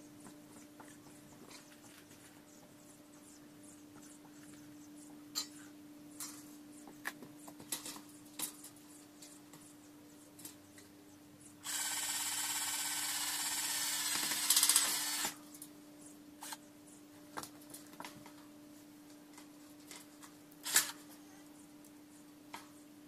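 A power drill runs for about three and a half seconds, beginning about twelve seconds in, as legs and braces are fastened to a steel angle-profile frame. Around it, scattered light metallic clicks and knocks of parts being handled, over a faint steady hum.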